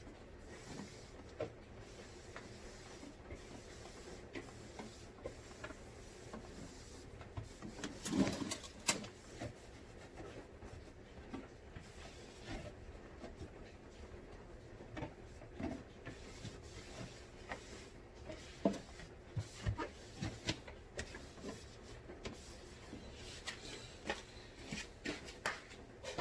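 Cleaning and handling sounds at a refrigerator: scattered light knocks, clicks and rubbing, with a louder scraping clatter about eight seconds in and a quick run of knocks near the end.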